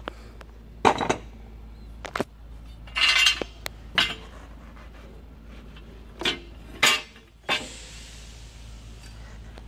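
Loose steel parts clanking and clinking on the top of a Volvo D13 engine as the angle iron bracing the rocker arms is taken off: about seven sharp metal knocks, spread out irregularly, one of them a short rattling clatter.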